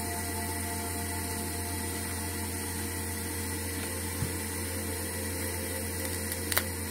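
Steady electrical mains hum throughout. Over it come a faint click about four seconds in and a sharper click near the end, from a pry pick working along the edge of a smartphone's frame.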